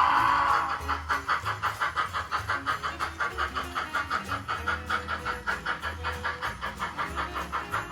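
Model train running on the layout track, an even rapid rhythm of about five clicks or chuffs a second over a low motor hum. Background music fades out in the first second.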